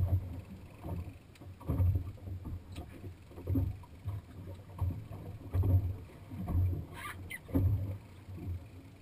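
Choppy water slapping against a small boat's hull: low, irregular thumps about once a second.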